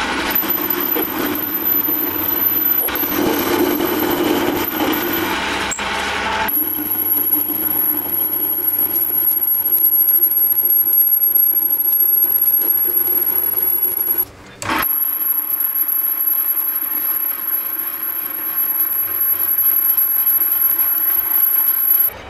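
Metal lathe running with a cutting tool turning down a metal bar, a steady rubbing, scraping cut as long curling swarf comes off, over the hum of the machine and a faint high whine. The sound breaks off for a moment about two-thirds of the way through, then the cut goes on.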